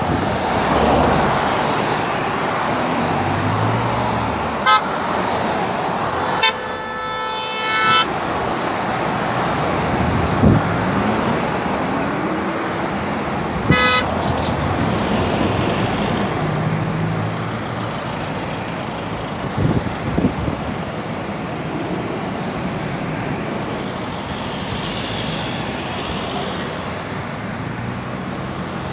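Road traffic running steadily, with vehicle horns honking: a short toot about five seconds in, one long blast at about six and a half seconds, and another short toot at about fourteen seconds.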